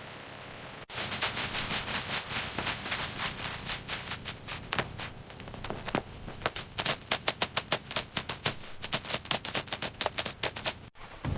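A dense clatter of sharp clicks and knocks that starts abruptly and cuts off suddenly. The clicks come irregularly at first, then in a quicker, more even run of several a second.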